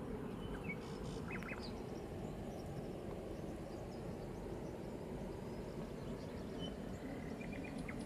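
Steady low outdoor background noise by the water, with a few short bird calls about a second in and a quick run of chirps near the end.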